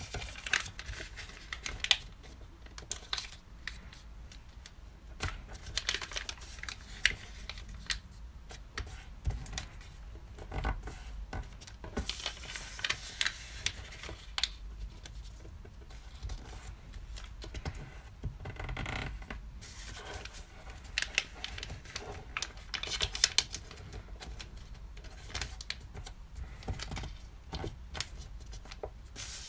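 Sheet of origami paper being folded and creased by hand on a wooden tabletop: irregular crinkling rustles and sharp clicks and taps as fingers press the folds flat.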